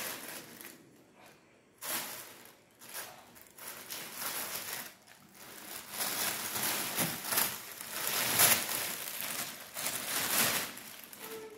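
Thin plastic bag crinkling and rustling irregularly as kittens step on and paw at it, busier and louder in the second half.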